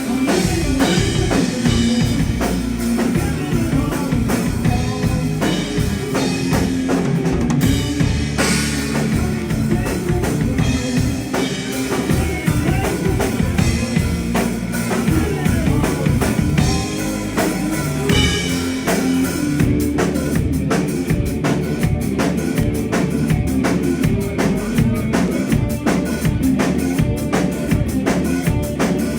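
Rock band playing live, with a loud, driving drum kit (bass drum, snare and crashing cymbals) over bass.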